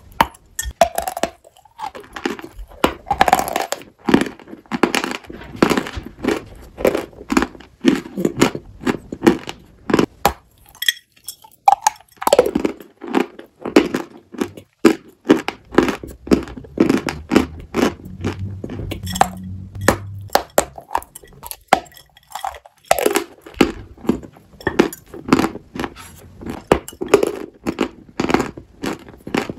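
Close-miked biting and chewing of a block of dry chalk: rapid, dry crunches and crackles in three runs, with two brief pauses between them.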